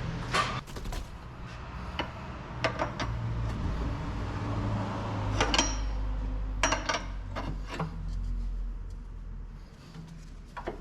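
Metal clinks and knocks of tools and parts being handled under a Nissan Serena's front suspension, about eight sharp separate strikes over a low steady hum.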